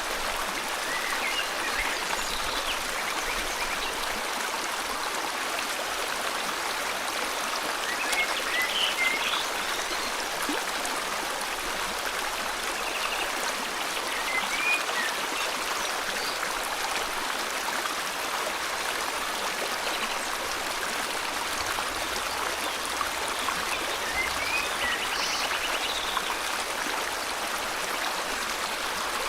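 Steady rush of a flowing river, with scattered short bird chirps and a couple of brief trills now and then.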